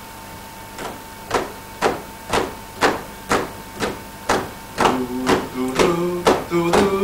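A steady percussive beat, about two hits a second, with a low bass line joining about five seconds in.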